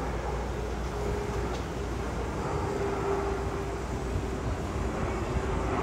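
Jet airliner flying low overhead: a steady low rumble with a held engine tone.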